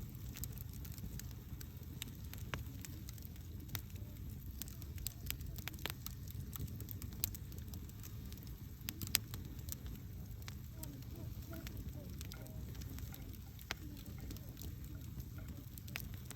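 Wood campfire crackling: scattered sharp pops and snaps, two of them louder about seven and nine seconds in, over a steady low rumble.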